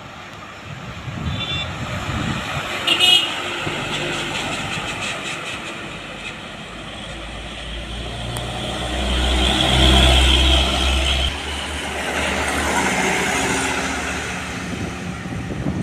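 Heavy trucks passing along a road, their diesel engines droning and swelling to the loudest pass about two-thirds of the way through. Two short horn toots sound near the start.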